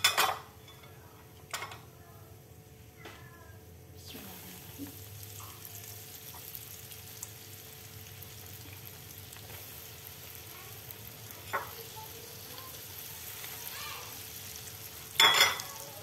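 Hot oil sizzling steadily in a wok as battered broccoli deep-fries, the sizzle growing louder about four seconds in. A few sharp knocks, loudest at the start and near the end.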